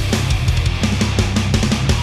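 Loud heavy metal backing music with a driving drum beat and a heavy low bass line.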